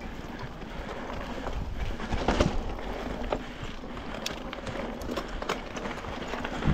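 Mountain bike riding over a dirt and grass trail: steady tyre noise with a low rumble, and the bike rattling and knocking over bumps, the sharpest knocks about two, three, four and five and a half seconds in.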